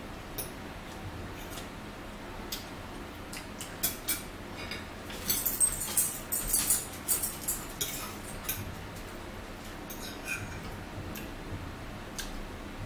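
Forks and knives scraping and clinking on dinner plates as food is cut and eaten, with a busier run of quick scrapes and clicks about five to seven seconds in.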